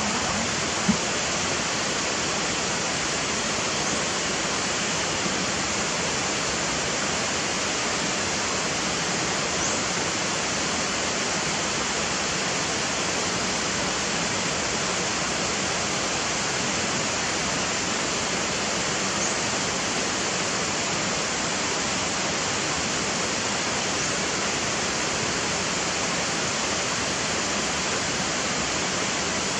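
Steady, even rushing noise throughout, with a few faint, short, high rising chirps.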